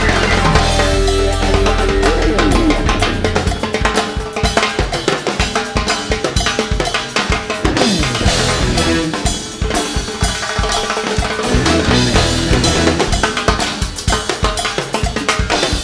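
Latin rock band playing live, with drum kit, congas and timbales in a busy percussion groove. The band's sustained low notes drop away after about three seconds, leaving mostly drums and hand percussion.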